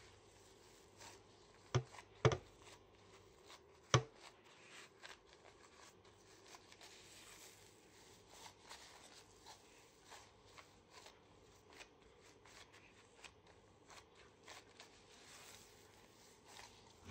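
Plastic-gloved hands kneading minced beef burger mix in a glass bowl: faint rustling of the plastic and soft handling of the meat, with a few sharp clicks, the loudest about two and four seconds in.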